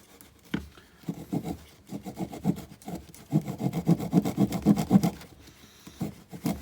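Saw teeth on the spine of a Broc Tracker knife cutting a notch into green wood, in quick back-and-forth rasping strokes that come in runs with a short break near the end.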